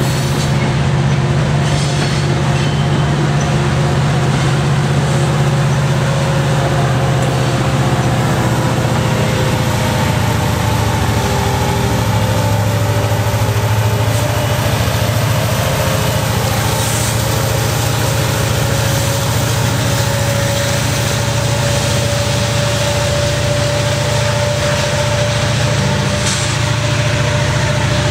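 Freight train passing close by: loaded hopper cars rolling, with the diesel engine of an EMD SD70M-2 distributed-power locomotive running loud and steady as it goes by. A whine that slowly rises in pitch runs through the engine sound.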